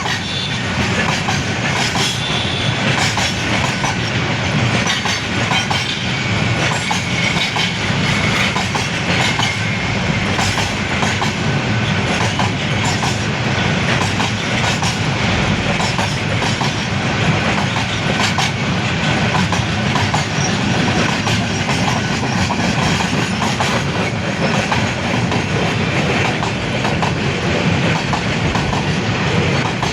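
Container freight train rolling along the rails: a steady loud rumble of wagon wheels with rapid irregular clicks and clatter from the wheels over the rail joints.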